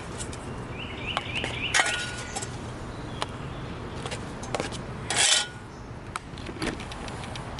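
A utensil scraping and clinking against a pan and plate as cooked hash browns are served up, with scattered sharp knocks and two louder scrapes about two and five seconds in.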